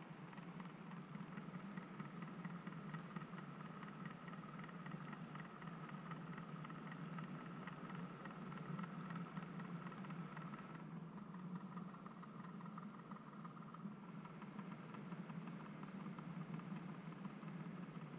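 OO gauge model Class 08 diesel shunter moving slowly along the sidings with a van in tow. It gives a steady low hum with a faint rapid clicking.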